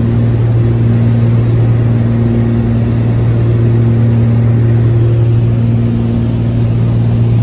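Light aircraft's propeller engine droning steadily, heard inside the cabin: a constant low hum with fainter higher tones coming and going above it.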